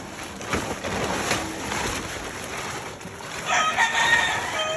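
A rooster crowing once, starting about three seconds in and held for over a second.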